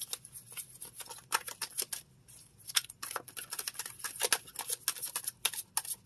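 A tarot deck being shuffled by hand: a run of quick, irregular crisp card flicks and snaps, with a short pause about two seconds in.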